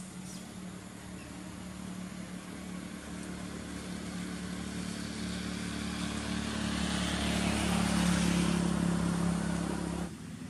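A motor vehicle's engine running with a steady hum, growing louder over several seconds and then cutting off suddenly near the end.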